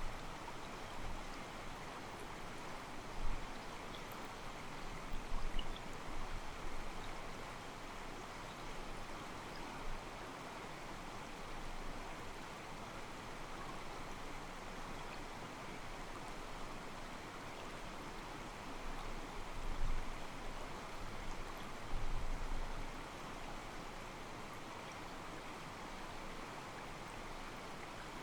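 Mountain stream flowing steadily, its water sloshing softly against rocks. A few brief low bumps break through: two about three to six seconds in, and two more about twenty seconds in.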